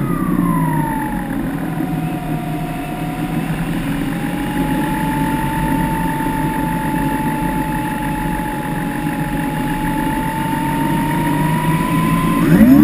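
The electric motor and propeller of a Skywalker RC plane, heard from the onboard camera, winding down as the throttle is cut. Its whine falls in pitch, then the plane glides with air rushing past and a faint steady whine. Near the end the motor spins back up, its pitch rising sharply to full power.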